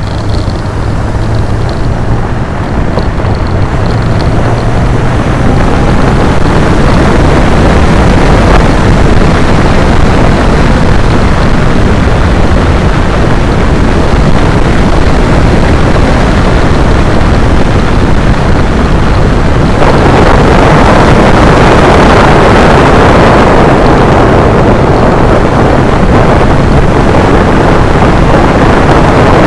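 Motorcycle riding at speed: a steady rush of wind over the microphone dominates, with the engine's low drone underneath. The wind grows louder over the first few seconds and again about two-thirds of the way through.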